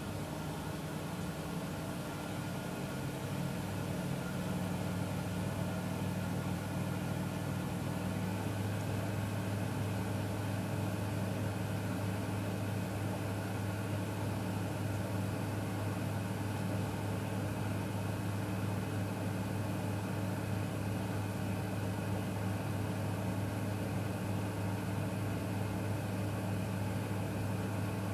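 Miele W1 front-loading washing machine running: a continuous motor hum whose pitch changes in steps about three and eight seconds in, then holds steady.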